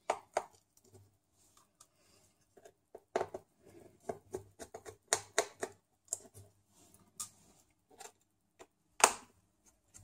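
Small irregular clicks, taps and scrapes of fingers handling the screws and plastic memory compartment cover on the underside of a Panasonic Toughbook CF-18 laptop, with a sharper click about nine seconds in.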